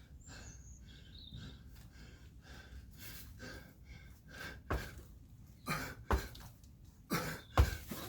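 A man breathing hard, with sharp exhales as he works through kettlebell jump squats. In the second half there are several short, sharp sounds, which fit feet landing on the floor from the jumps.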